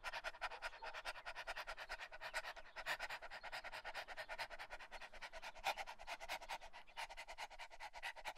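A dog panting fast and evenly, several quick breaths a second.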